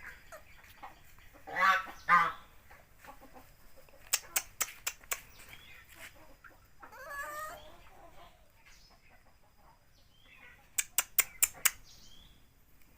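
Chickens clucking, with two louder pitched calls, one about two seconds in and another around seven seconds. Two quick runs of sharp clicks come in between, the second near the end.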